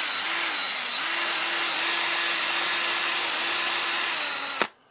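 Power tool spinning a wire brush to scour corrosion and debris out of a driver head's hosel bore. A steady motor whine whose pitch sags under load a few times, then the tool stops with a click near the end.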